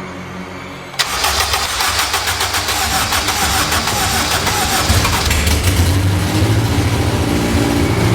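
A Honda car engine starting about a second in, running fast and busy at first, then settling into a steady idle.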